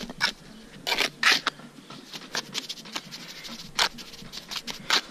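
Irregular scratchy clicks and taps, about a dozen short ones, the sharpest a little over a second in and just before four seconds in.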